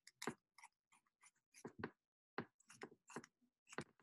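Faint, irregular snips and rustles of T-shirt fabric being handled and cut into strips with scissors, about ten short clicks in all.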